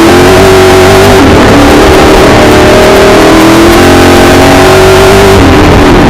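Milner R5 racing car's 5-litre V8 engine heard from inside the car, revving hard under throttle. Its pitch dips about a second in, climbs steadily through the middle and drops again near the end.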